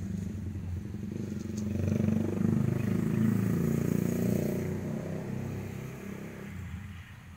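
A passing motor vehicle's engine, growing louder to a peak about two to four seconds in, then fading away.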